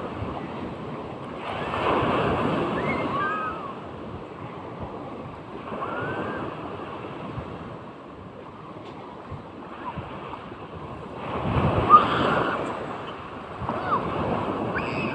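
Sea waves surging and breaking in four swells, the loudest about three-quarters of the way through, with wind on the microphone.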